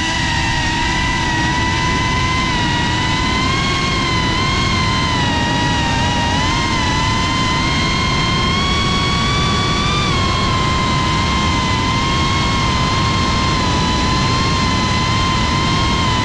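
FPV drone's brushless motors and propellers whining steadily, heard from the GoPro on board, over a rush of prop wash and wind. The pitch wavers up and down a little as the throttle changes.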